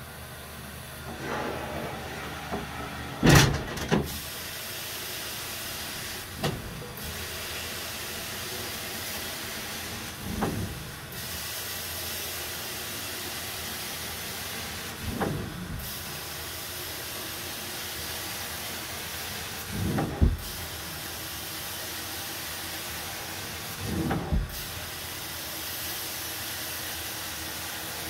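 Carpet extraction machine running with a steady suction hiss. About every four to five seconds there is a short, louder surge with a low thud as the wand is worked across the carpet.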